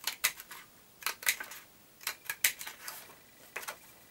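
Stampin' Up Itty Bitty Accents flower punch, a small handheld paper punch, snapping through designer series paper. It makes a string of sharp clicks, often in pairs, about one punch a second.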